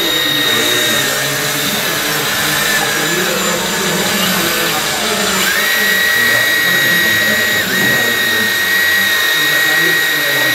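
Electric hydraulic pump of an RC Volvo EC480D model excavator whining steadily as it works the bucket and swings the upper body. The whine steps up in pitch about five seconds in and dips for a moment near eight seconds as the hydraulic load changes.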